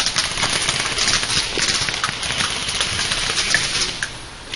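Irregular crackling and rustling of leafy brush and dry undergrowth, as someone moves and steps through it.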